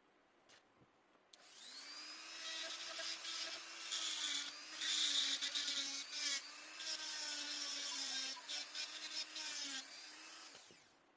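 Electric die grinder switched on with a click about a second in, winding up to speed and grinding in uneven, loud passes, then switched off and spinning down near the end.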